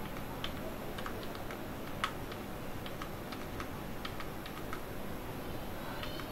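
Computer keyboard keys clicking one at a time, a few presses a second at uneven spacing, with one sharper click about two seconds in. Each press steps to the next typeface in Illustrator's font list. A low steady hum runs underneath.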